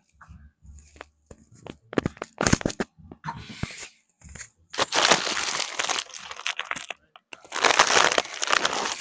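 Chiropractic adjustment of a child's spine: a quick cluster of cracking clicks about two seconds in, then two longer stretches of crinkling and rustling.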